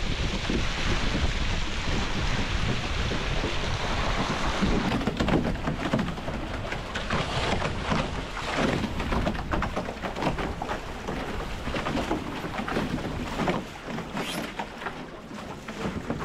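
Wind buffeting the microphone over water rushing and splashing along the hulls of an A-Class sailing catamaran. The sound is a steady rush at first, then from about five seconds in it turns gusty, with many short splashes and crackles.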